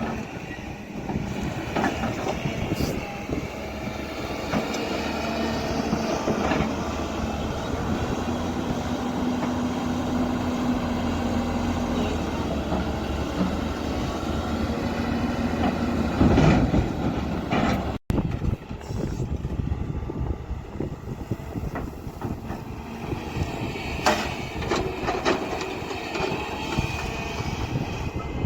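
Excavator's diesel engine running steadily under load, with scattered knocks and clatter of soil and boulders being loaded. A loud burst of clanking about two-thirds of the way through, then an abrupt cut to lighter, irregular working sounds.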